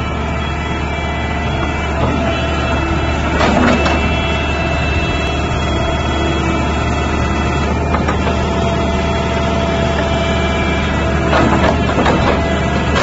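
Diesel engine of a Sumitomo SH120 excavator running steadily while the boom and arm are worked. It swells briefly about three and a half seconds in and again near the end.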